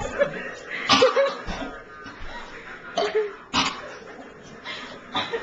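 A person coughing in about five short, separate bursts.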